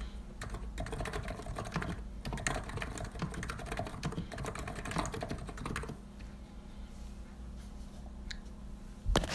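COX Empress electro-capacitive keyboard with 50 g switches being typed on: a rapid run of keystrokes that thins out to a few scattered presses about six seconds in, then one louder knock just before the end.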